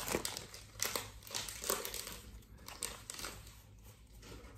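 Foil wrapper of a Pokémon trading card booster pack crinkling as it is torn open by hand, thinning out after about three seconds.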